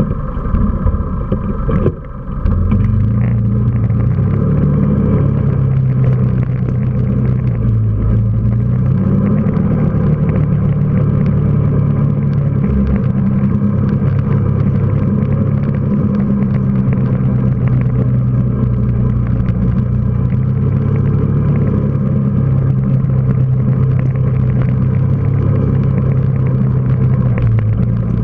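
Quad bike engine running steadily under way, its note dipping briefly about two seconds in and then rising and falling a little with the throttle.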